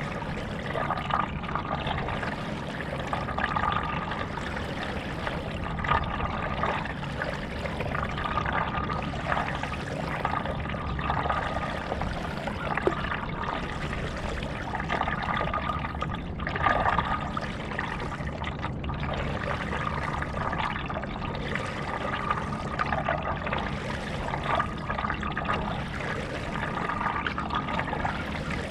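Stand-up paddleboard paddle strokes in lake water: the blade dipping and pulling through, with water trickling and splashing, swelling about every two to three seconds in a steady rhythm.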